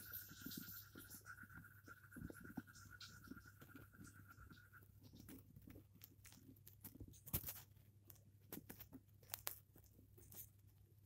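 Near silence: faint scattered clicks and rubs, handling noise of the phone held to a paper microscope, over a low steady hum. A faint steady high tone stops about five seconds in.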